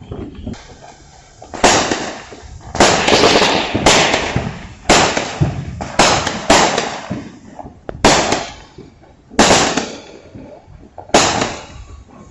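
Fireworks going off one after another: about nine sharp bangs roughly a second apart, each dying away over the following second.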